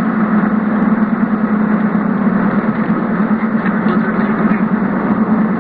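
Steady drone of a car driving, road and engine noise heard from inside the cabin, with a constant low hum.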